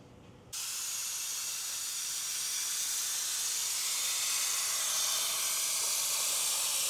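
Steady air hiss from a suction tool drawing old brake fluid out of a brake master cylinder reservoir through a tube. It starts abruptly about half a second in.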